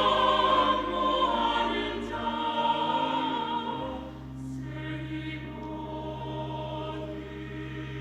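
Church choir singing a hymn anthem with sustained chords over steady low accompaniment notes, growing softer about halfway through.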